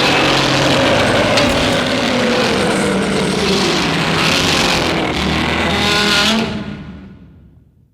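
A single long Shin Godzilla sound effect: a loud, dense rushing sound with sliding tones through it, holding steady for about six seconds and then fading out.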